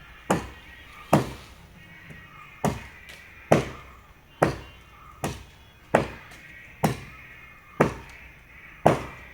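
Axe chopping wood in a steady rhythm: about ten heavy strikes, roughly one a second, each with a short ringing tail.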